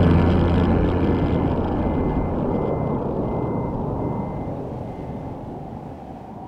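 Deep rumble of an explosion sound effect, slowly dying away.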